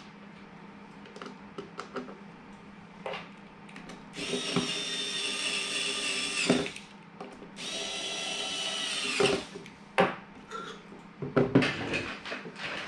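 Small electric screwdriver driving screws into a plastic enclosure in two runs of about two seconds each, the motor whine dropping in pitch as each screw seats. Scattered clicks and knocks of plastic parts being handled come before and after.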